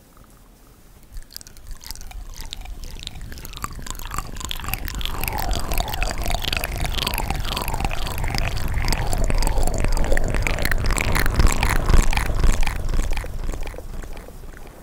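Close-miked ASMR mouth sounds: a dense stream of rapid wet clicks and smacks. It starts softly, builds over several seconds, is loudest a little before the end, then fades, with a low rumble underneath.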